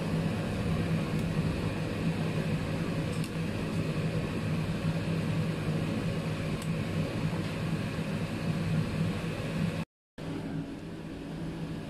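Soup at a rolling boil in a stainless-steel pot on a gas stove: a steady rushing noise under a low, constant hum. The sound drops out for a moment near the end.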